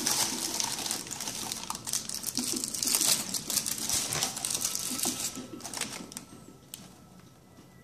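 Packaging rustling and crinkling, with many quick small clicks and scrapes, as a collectible statue is handled in its opened box; it dies down about six seconds in.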